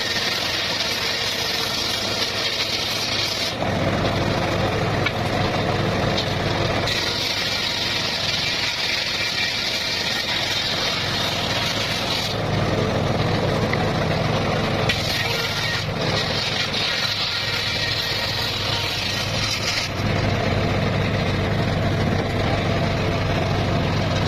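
Circular saw sawing petung bamboo. Every few seconds the sound switches between a high, hissing cutting whine and the lower drone of the saw's drive running between cuts.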